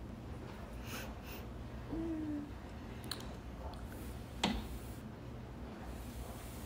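Quiet room tone with a steady low hum, a brief low hum-like tone about two seconds in, and a single sharp click about four and a half seconds in.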